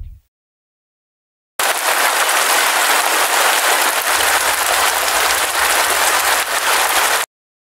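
Heavy rain falling on pavement: a steady hiss that starts abruptly about a second and a half in and cuts off abruptly near the end. A deep boom dies away at the very start.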